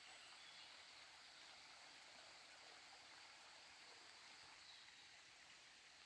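Near silence: a faint, steady hiss of outdoor ambience.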